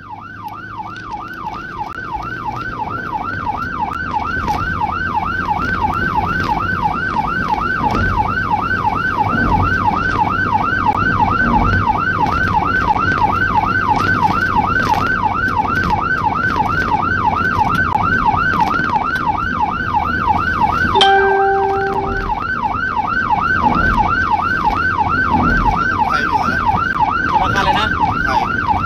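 Rescue vehicle's electronic siren on a fast yelp, sweeping up and down about three times a second, over engine and road noise. A short horn blast sounds about two-thirds of the way through.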